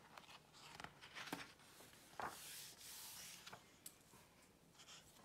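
A picture book's paper page being turned by hand: faint rubbing and rustling of paper, a few short swishes, then a longer soft rustle about two seconds in.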